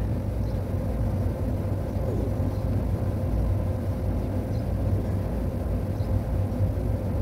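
Steady low rumble with a faint steady hum over it, and one short, faint falling exhale of effort about two seconds in.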